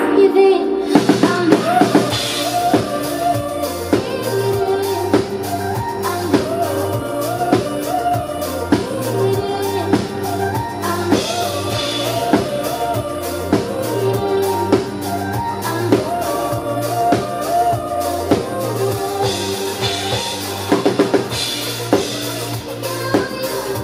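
Live pop band music with a steady drum-kit beat over a deep, moving bass line.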